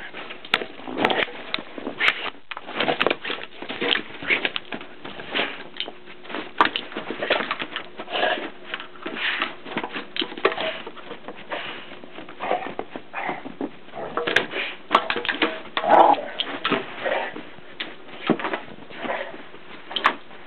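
A dog playing with a bowl in snow: irregular knocks, scrapes and crunches as the bowl is pushed about, with the dog's own snuffling sounds among them.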